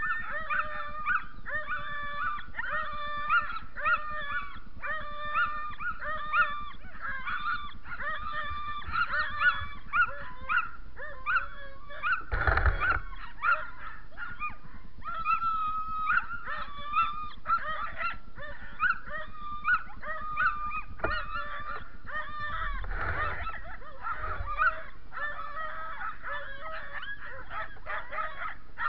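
Harnessed sled dogs barking and yelping over and over, about two calls a second, as a hitched team waiting to start a run does. Two brief noisy bursts cut through, about twelve seconds in and again about twenty-three seconds in.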